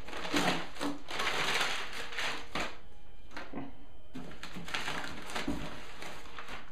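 Paper packing rustling and crinkling as it is pulled out of a shipping box and unwrapped by hand, with a brief lull about three seconds in.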